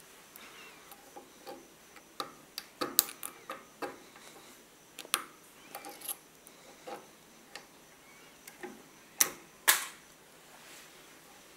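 Irregular small metallic clicks and scrapes of a pick working at the wire retaining ring on a hex driver's chuck as the ring is pried out of its groove, with two sharper clicks close together about nine seconds in.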